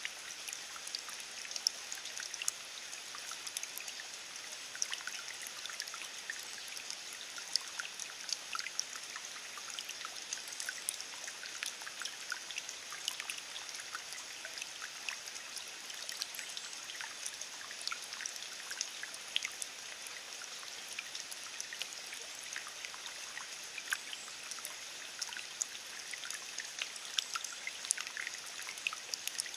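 Steady rain falling on wet ground and a puddle: an even hiss with many separate drop splashes ticking through it at irregular moments.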